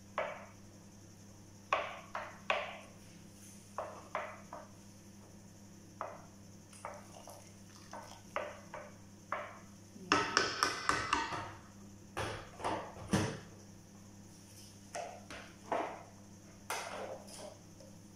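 Wooden spoon stirring rice in water in an enamel pot, knocking and scraping against the pot in scattered strokes, with a quick run of taps about ten seconds in. A steady low hum runs underneath.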